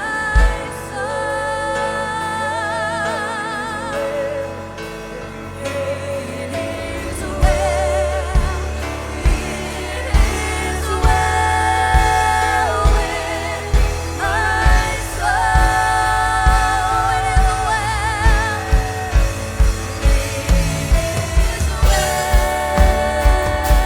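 Live church worship band playing and singing a hymn: several voices hold long notes with vibrato over synth, piano and bass. Drums come in about seven seconds in and settle into a steady beat of about two hits a second near the end.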